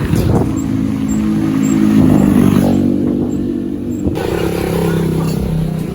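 A motor vehicle engine running, its pitch shifting up and down.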